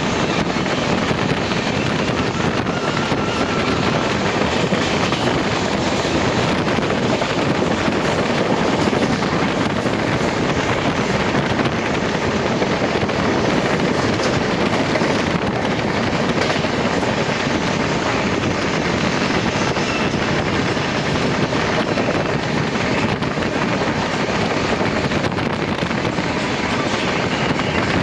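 Passenger train running steadily at speed: a continuous, even rumble and rush of wheels on the track and air.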